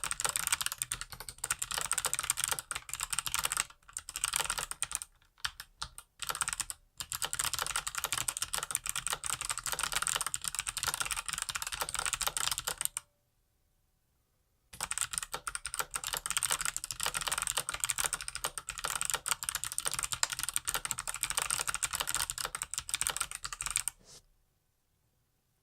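Fast, continuous typing on a mechanical keyboard with clicky Kailh Box Jade switches: a dense stream of sharp key clicks, broken by brief pauses and one gap of about two seconds a little past halfway. The typing stops shortly before the end.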